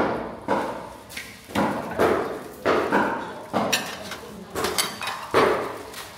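A metal kitchen utensil knocked over and over, about two strikes a second, each dying away quickly; a couple of strikes near the middle leave a brief high metallic ring.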